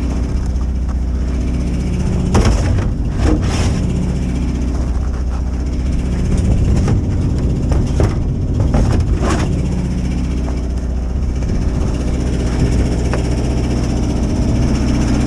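An engine running steadily, with several short knocks or clanks in the first two thirds.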